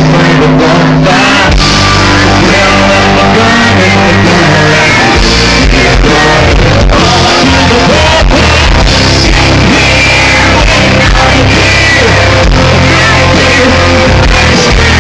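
Live country-rock band playing loudly, with guitars, drums and singing.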